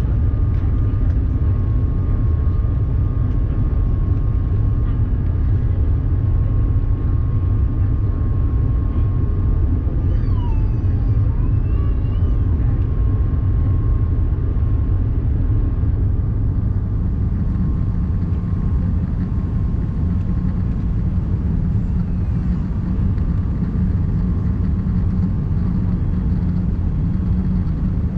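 Steady cabin rumble inside an Airbus A380, engine and airflow noise with a faint steady whine; a deeper hum grows louder about two-thirds of the way through.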